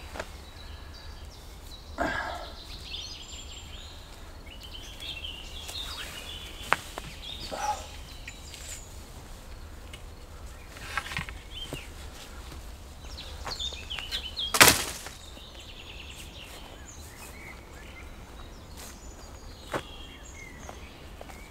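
Birds chirping in woodland, with scattered knocks and rustles from a tarp shelter and its wooden pole being taken down; the loudest knock comes about two-thirds of the way through.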